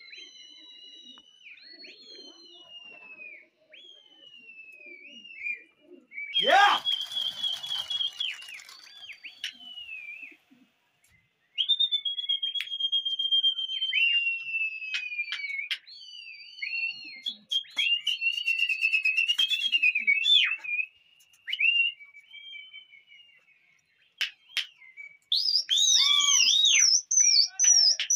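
A pigeon fancier whistling repeatedly to his flock: long shrill notes that slide down in pitch, some warbling trills, and louder, higher whistles near the end. A sudden rising whoosh comes about six seconds in.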